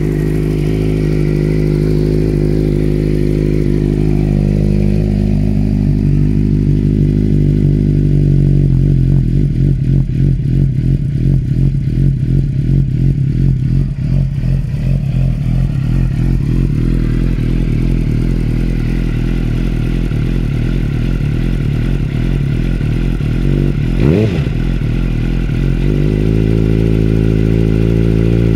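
2006 Suzuki GSX-R600's inline-four idling loud on a cold start through an unbaffled Leo Vince SBK end can, with one brief rise and fall in revs near the end.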